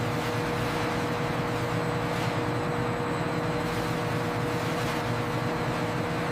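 Machinery running with a steady low hum and a constant tone above it, unchanging throughout.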